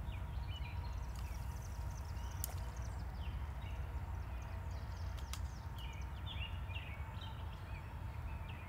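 Birds chirping in short, repeated calls over a steady low rumble. There is a sharp click about two and a half seconds in and another about five seconds in.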